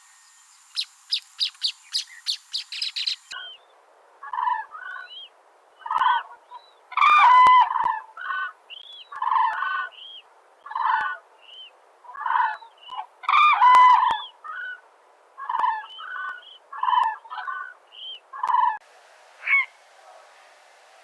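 Bird calls. First a quick run of high chirps for about three seconds, then, after an abrupt change, a different bird calling in short lower notes repeated about once a second, some louder than others, until near the end.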